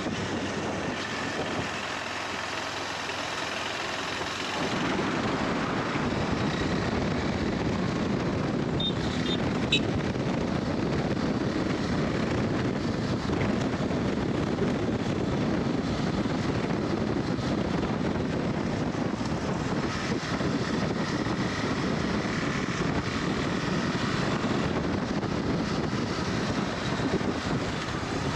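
KTM 390 Adventure's single-cylinder engine running as the motorcycle rides, mixed with wind rushing over the microphone. The sound gets louder about four or five seconds in.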